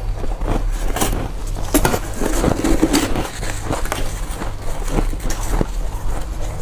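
Powdery freezer frost being bitten and chewed close to the microphone: a rapid, irregular run of soft crunches and crackles, over a steady low hum.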